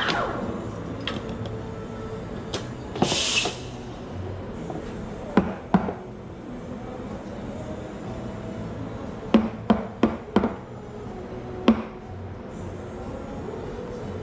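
Clatter of espresso-bar work: a machine noise dies away at the start, a short hiss comes about three seconds in, then scattered sharp knocks and clinks of equipment, four in quick succession a little past the middle. Faint music plays in the background.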